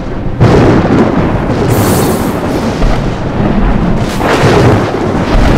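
Film soundtrack of a storm: thunder rumbling continuously, loud and dense, with heavier surges about half a second in and again about four seconds in.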